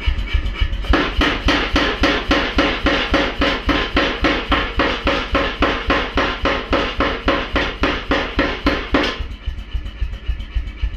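Anyang 25 kg power hammer running, its ram striking a block of timber on the die in a fast, even rhythm of about four blows a second. From about a second in until about nine seconds the blows are heavier and louder, then they drop back to light taps.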